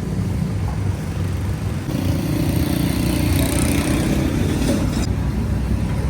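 Street traffic noise: vehicle engines running steadily. A louder hiss and hum joins in about two seconds in and stops suddenly about five seconds in.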